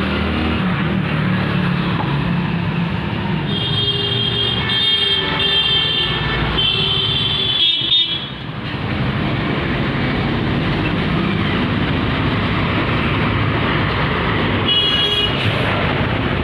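Road traffic noise with a steady rumble, and a vehicle horn honking several times between about four and eight seconds in, then once more briefly near the end.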